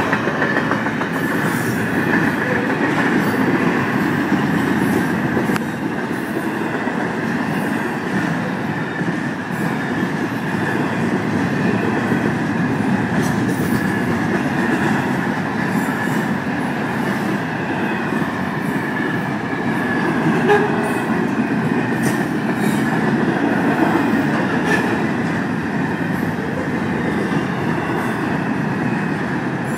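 Florida East Coast Railway freight train's double-stack container cars rolling steadily past: a continuous rumble and clatter of wheels on rail, with a thin steady high wheel squeal over it.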